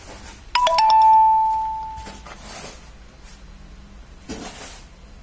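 A bell-like chime: a few quick strikes about half a second in, then one clear tone ringing down and fading over about a second and a half.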